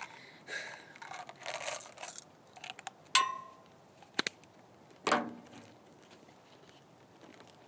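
A Mentos roll's wrapper rustles and crinkles as it is peeled open. A few sharp clicks and knocks follow, the two loudest about three and five seconds in.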